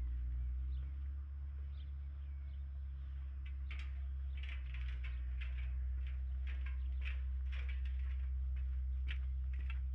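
Birds chirping in a quick, irregular run of short high notes, starting about three and a half seconds in, over a steady low rumble.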